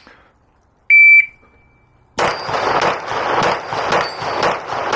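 Shot timer beeps once, short and high, about a second in. From about two seconds in a Glock 34 9mm pistol fires a quick string of shots at steel plates, about two shots a second.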